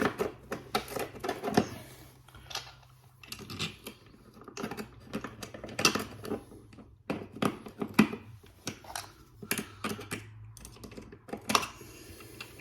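Irregular clicks and knocks of plastic parts being handled as an Ethernet keystone jack is fitted into a click socket plate.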